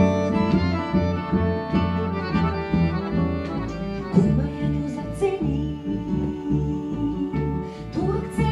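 Small acoustic folk band playing a Croatian folk song: accordion chords over plucked guitar and a double bass line, with a woman singing.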